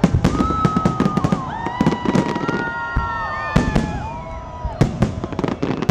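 Fireworks salute: a dense run of bangs and crackling bursts. Several long, steady whistle-like tones overlap from about half a second in until about four seconds in.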